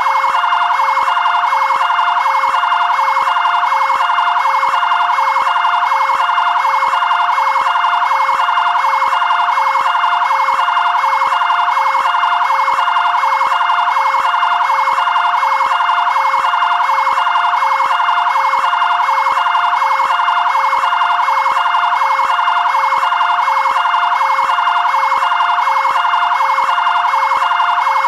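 Fire brigade area-command vehicle siren sounding its two-tone (bitonal) pattern, two pitches alternating quickly and evenly without a break.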